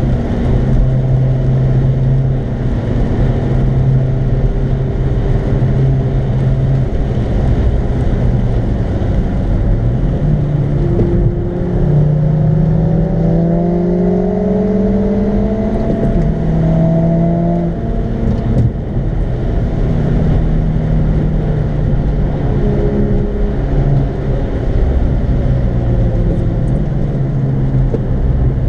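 Car engine heard from inside the cabin, humming at a steady note, then rising in pitch as it accelerates about halfway through and dropping at a gear change. A constant rush of tyre and road noise runs underneath.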